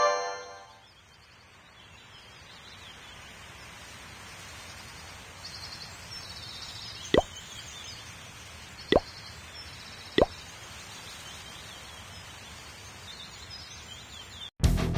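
Three short, sharp plops, the second two about a second apart, over a faint steady outdoor hiss with a few faint high chirps. A music chord dies away at the start.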